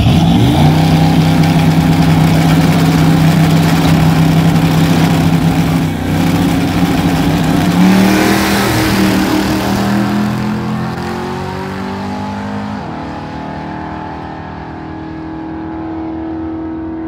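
Drag-racing cars held at high revs on the starting line, then launching and accelerating away down the strip. Engine pitch climbs, jumps once near the end, and the sound fades with distance.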